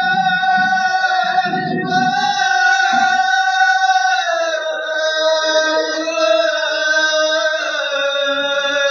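Men chanting a Pashto noha, a Shia mourning lament, drawing out a long held note that steps down in pitch twice.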